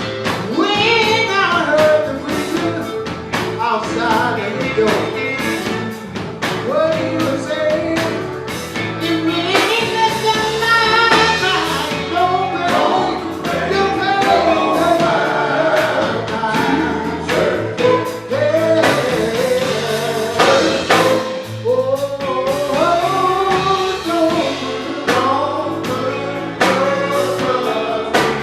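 A song with a singing voice over instrumental backing and a steady beat.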